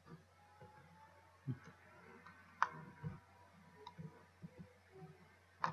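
A few faint, scattered computer mouse clicks and soft taps; the sharpest comes about two and a half seconds in and another near the end.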